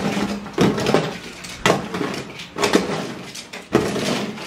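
Handfuls of small die-cast metal toy cars (Hot Wheels and Tomica) clinking and clattering against each other as they are scooped together on a table and handled into plastic storage boxes, with sharper clatters coming irregularly.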